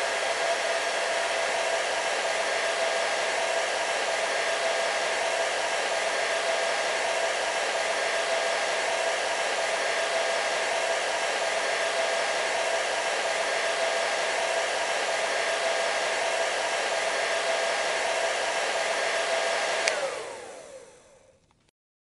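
Hair dryer running with a steady rush of air and a constant whine. Near the end there is a click, and the motor winds down: the whine falls in pitch as the sound fades out.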